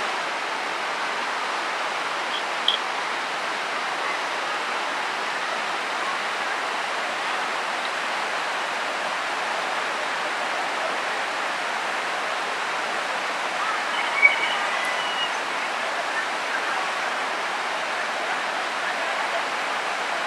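Steady rush of a mountain stream cascading over a small weir and tumbling between boulders. Two brief faint sounds stand out over it, the second about two-thirds of the way through.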